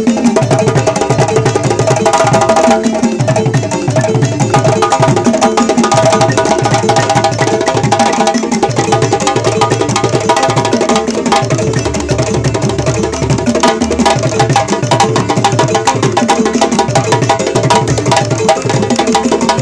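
Balafon played in fast, rippling runs of wooden-bar notes over a steady pattern of low hand-drum beats from djembe and calabash, as improvised West African music.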